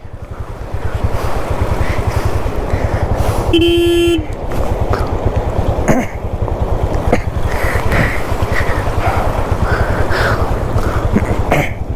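Motorcycle engine running with an even low beat, and a vehicle horn honks once, briefly, about three and a half seconds in.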